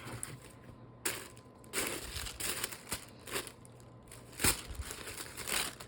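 Packaging crinkling and rustling in irregular bursts as a parcel is opened and handled, with a sharper knock about four and a half seconds in.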